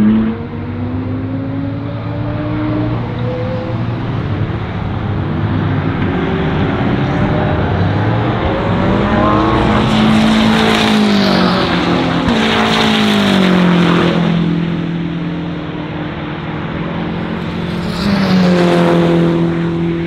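GT3 race cars at speed on track, several engines heard at once. One grows loud about nine seconds in, its pitch climbing and then dropping as it passes, and another passes loudly near the end.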